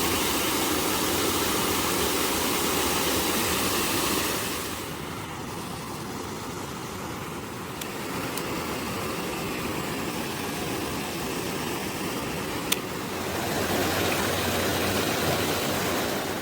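Water of a small mountain stream rushing steadily. It is louder at first, softer from about four seconds in and louder again near the end, with a single sharp click about three-quarters of the way through.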